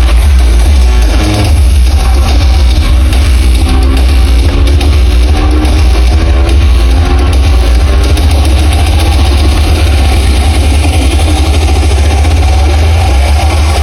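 Loud amplified music over a sound system, with a heavy, booming bass and pitched notes that slide in pitch through the middle.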